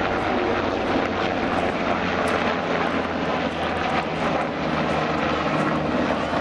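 Sikorsky S-92 helicopter flying past, its four-blade main rotor and twin turboshaft engines running loud and steady.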